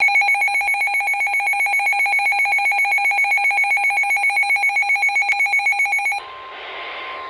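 Electronic emergency alert tone: a loud two-pitch tone pulsing about seven times a second for about six seconds, cutting off abruptly. It gives way to radio hiss with a single steady tone, the warning alarm tone that comes before a weather radio warning message.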